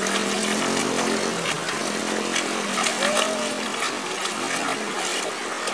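A small motorcycle engine running as it is ridden through floodwater, over a steady hiss of flowing water.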